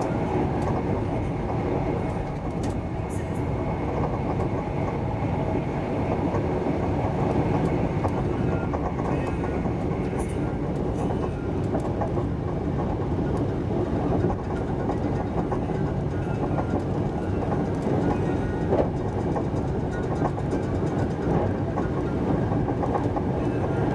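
Interior running noise of an SJ 3000 (X55) electric train travelling at speed: a steady, low rumble with occasional faint clicks, heard inside the passenger car.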